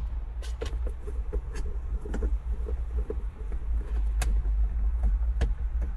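Scattered sharp clicks and light knocks of plastic interior trim and clips being handled and pried, over a steady low rumble.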